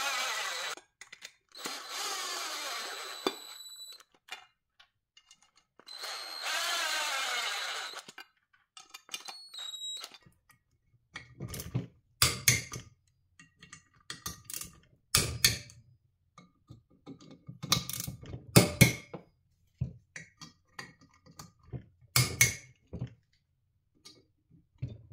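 A power driver runs in three short bursts, snugging the oil cooler's screws on a Mercedes M272 engine. From about eleven seconds in come about five sharp metallic clicks, a click-type torque wrench reaching its setting as the screws are torqued down.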